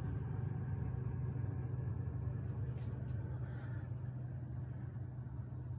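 Samsung refrigerator running with a steady low hum, quiet and free of grinding now that the ice on the evaporator has been cleared and the fan blades no longer strike it. A couple of faint ticks come about halfway through.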